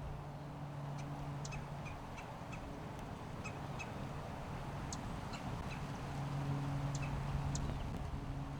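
Outdoor ambience: short, scattered bird chirps over a steady background hiss and a low hum that swells and fades, loudest about six to seven and a half seconds in.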